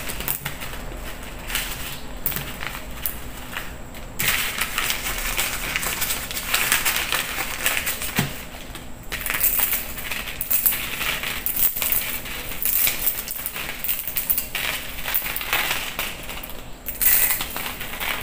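A block of dry instant noodles being crushed and crumbled by hand, brittle crackling and snapping as the strands break and pieces drop onto newspaper. It gets louder about four seconds in.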